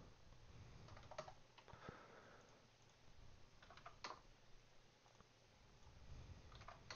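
Faint computer keyboard keystrokes and mouse clicks, coming in a few short clusters, as text and numbers are typed into a form.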